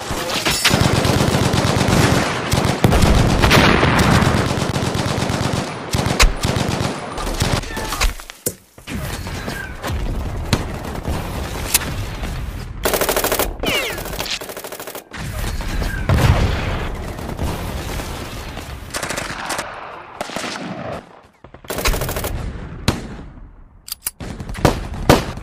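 Battle sound effects of gunfire: rapid machine-gun bursts and shots, nearly continuous, with brief lulls and a few sharp louder shots near the end.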